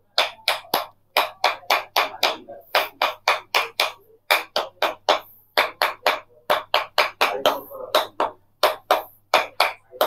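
A small mallet tapping the top of a wooden rod held against a patient's back, as rapid percussive strikes in manual therapy. The taps come about three to four a second, sharp and woody, with a few brief pauses.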